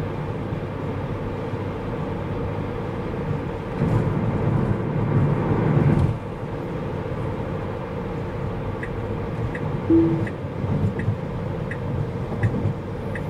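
Tyre and road noise inside a Tesla's cabin at highway speed, louder for about two seconds a few seconds in. From about nine seconds in, the turn signal ticks steadily, about three ticks every two seconds, as the car signals an automatic lane change, with a short beep about a second into the ticking.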